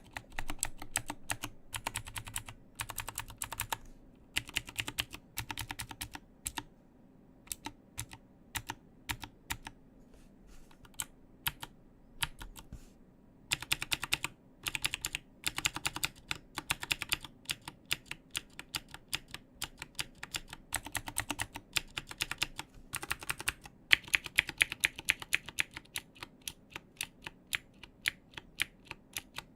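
Typing on an Mstone Groove T aluminium-cased mechanical keyboard with Cherry MX Blue clicky switches and Mstone Dark City keycaps: fast runs of sharp clicking keystrokes, slowing to sparse single presses for several seconds in the middle before fast typing resumes.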